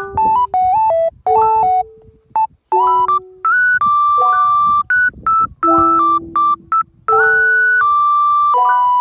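Background music: a bright synthesizer keyboard melody of short stepping notes, with a few longer held notes.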